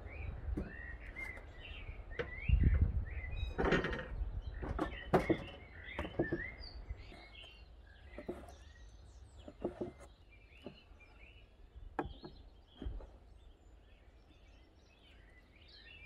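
Small birds chirping throughout, with a heavy wooden board thumping down about two and a half seconds in and several knocks as it is settled. Later come scattered sharp clicks of a knife cutting meat against the wooden board.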